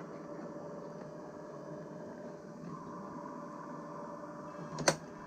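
A machine running with a steady hum, with one sharp click near the end.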